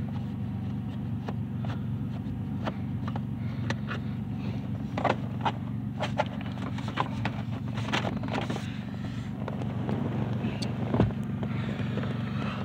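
Scattered small clicks and taps of hand tools and parts at the steering column's ignition lock, over a steady low rumble.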